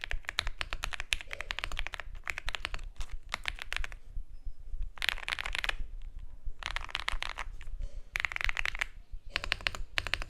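Typing on a Mchose Z75S mechanical keyboard: a continuous run of rapid keystrokes, then four short bursts of fast typing with brief pauses between them.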